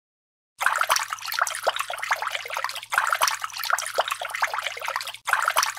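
Water-fountain sound effect: a dense splashing, bubbling spatter of water that starts abruptly about half a second in, with a brief break near the end.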